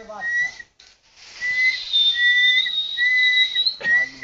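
Whistling: several short notes held at one steady pitch, one after another, over a hiss.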